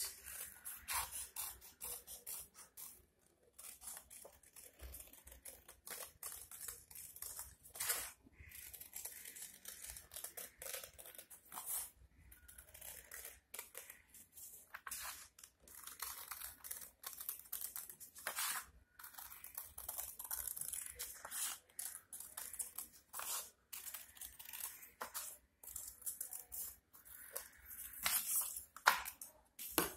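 Scissors cutting a circle out of a sheet of Fabriano paper: a long string of short, irregular snips with crisp paper rustle.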